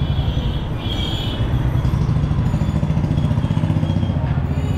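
Street traffic with a vehicle engine running close by, a steady low rumble; a short high tone sounds briefly about a second in.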